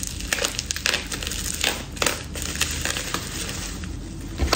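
Plastic packaging wrap crinkling and crackling as it is handled and pulled apart, in quick irregular crackles.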